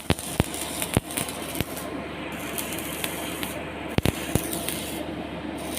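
Sharp clicks and knocks of hand work on a trolley rail during a repair, a few near the start and a cluster about four seconds in, over a steady hiss.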